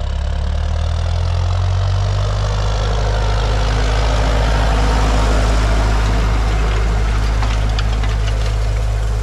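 John Deere 5720 tractor's four-cylinder diesel engine running steadily under load as it pulls a seed drill, growing louder as it comes close and passes about five to six seconds in.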